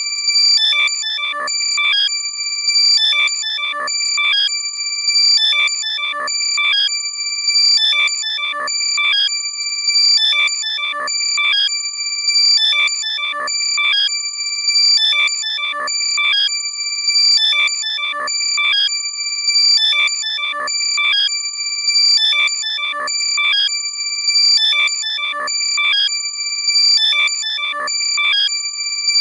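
Loud, compressed electronic alert tone meant for locating a lost wireless earbud: bursts of quick synthetic chirps repeat about every two and a half seconds over steady high-pitched tones.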